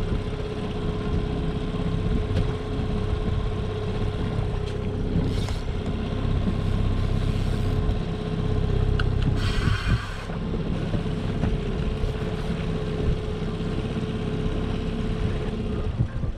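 Boat's outboard motor running steadily, a low hum with a steady whine over it, and a brief rush of hissing noise about nine and a half seconds in.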